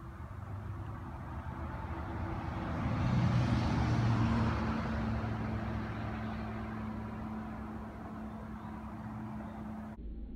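A passing vehicle's engine noise: a broad rumble with a steady low hum that swells to its loudest about three to four seconds in, then slowly fades. It breaks off abruptly near the end.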